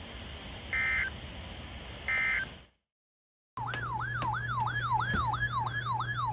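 Emergency Alert System end-of-message data bursts: two short, harsh digital chirps over a hissy broadcast. After a second of dead silence, an electronic siren-like alert tone starts, sweeping up and down about three times a second over a low hum, marking the start of the next alert.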